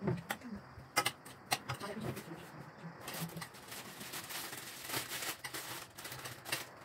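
Dishes and utensils being handled: a string of light clicks and knocks, with a stretch of rustling and scraping from about three to five and a half seconds in.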